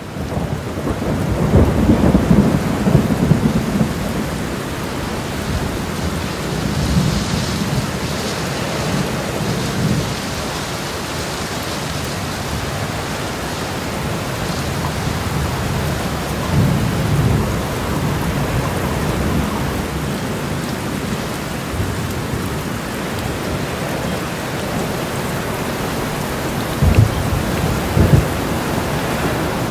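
Heavy rain pouring down on pavement and parked cars, a steady hiss, with low rumbles that come and go, strongest in the first few seconds and twice near the end.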